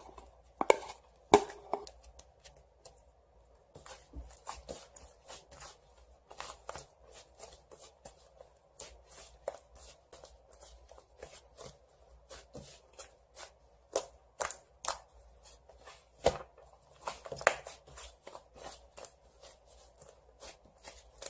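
White fluffy slime being squeezed and pressed by hand, giving a run of irregular small clicks and pops with a few louder snaps.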